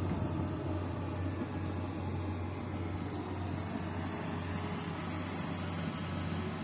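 Bulldozer's diesel engine running steadily, a low even drone.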